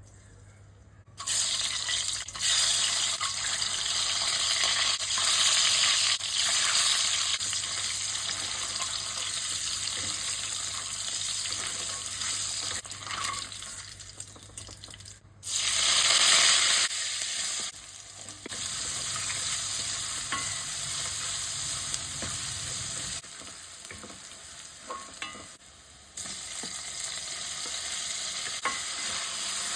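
Food sizzling in hot oil in a pan while being stirred, starting about a second in. The sizzle jumps louder and drops back at several abrupt cuts, loudest for a moment about sixteen seconds in.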